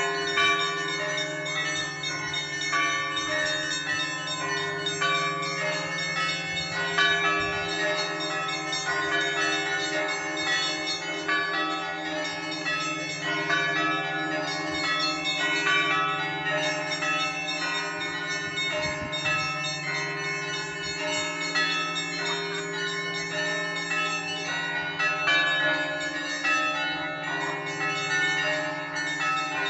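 Russian Orthodox cathedral bells rung together in a continuous peal. Many smaller bells strike quickly and overlap above the lasting hum of a large bell.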